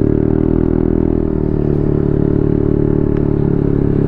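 Motorcycle engine running steadily at riding speed, its pitch shifting slightly about a second in.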